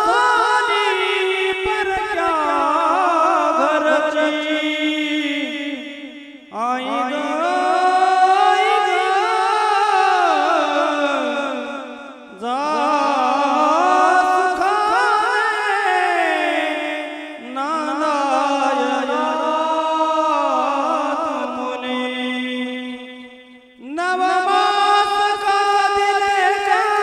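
A man singing Mangalashtak, the Marathi wedding verses, solo in long, ornamented melodic phrases of about five to six seconds each, with short breaks between them.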